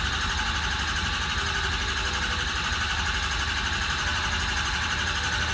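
Starter cranking a freshly rebuilt Ford Powerstroke diesel, which does not fire, turning it over steadily to prime the oil system and build injection-control oil pressure.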